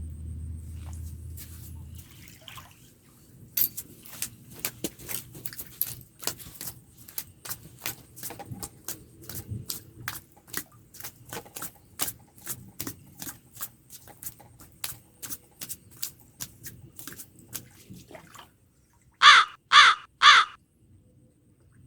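A crow caws three times in quick succession near the end, loudly. Before the caws there is a long run of irregular sharp clicks and ticks.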